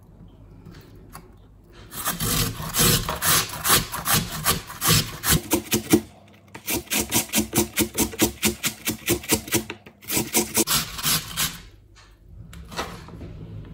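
A raw potato grated on a flat metal hand grater, rasping strokes in a quick rhythm of about three a second, with a short pause about six seconds in.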